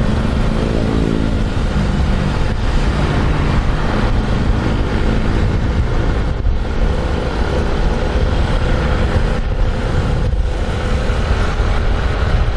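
A motor vehicle engine running close by on the road, under a heavy low rumble; its pitch drops about a second in.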